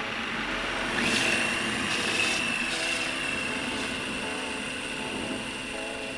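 Electric drive motors and gearbox of a 3D-printed RC screw tank whining as it drives through snow. The whine rises in pitch about a second in, as it speeds up, and then holds steady.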